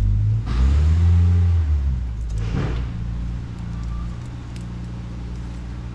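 A motor vehicle's engine running, its pitch and level rising about half a second in, then settling and fading, with two short bursts of hiss.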